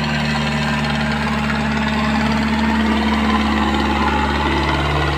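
Powertrac Euro 60 tractor's diesel engine running steadily under load as the tractor drags an implement across tilled soil.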